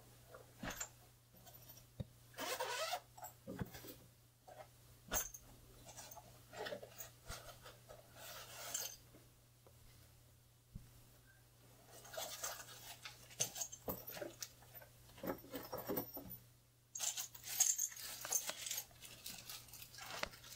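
Unboxing handling sounds: scattered clicks, light knocks and rustling as an aluminium tripod is pulled out of its box and packaging and handled. Louder crinkling of a small plastic accessory bag comes in the last few seconds.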